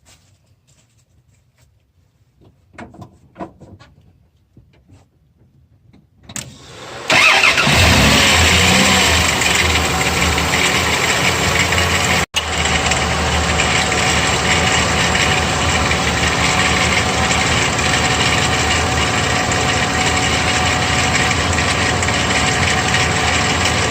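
Faint handling clicks, then about six seconds in the Dodge Dakota's engine is started: it catches, runs loud for a moment, then settles into a steady idle. It is running to circulate ground pepper added to the leaking radiator as a stop-leak.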